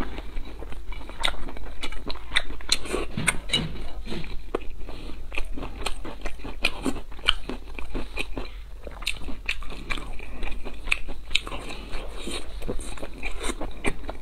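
Close-miked chewing of braised pork belly: a dense, uneven run of short, wet mouth clicks and smacks as the soft, fatty meat is bitten and chewed.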